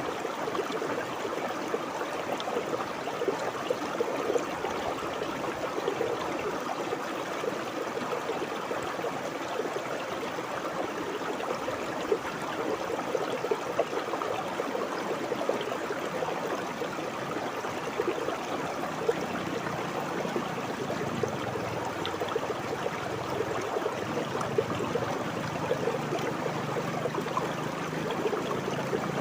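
River water flowing and babbling over stones in a steady rush. In the second half a faint low hum that slowly rises in pitch comes in underneath.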